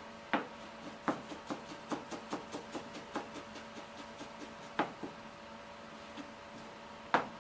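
Kitchen utensils knocking and tapping during food preparation: one sharp knock, then a quick run of light taps at about four a second, then two more sharp knocks, over a steady hum.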